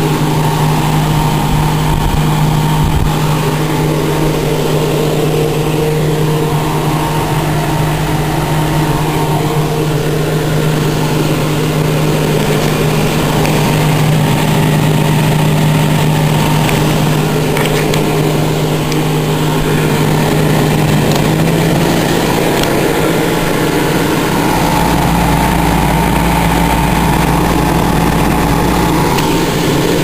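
Small 12-watt two-speed 12-volt DC fan, about six inches across, running on a homemade cooler air conditioner: a steady motor hum with air rush. The hum steps up slightly in pitch about two-thirds of the way through.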